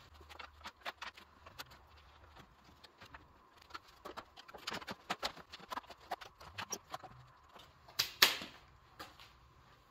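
Scattered light clicks and taps of the Bronco's plastic radiator-support trim cover being laid back in over the grille and pressed into place, with a couple of louder knocks near the end.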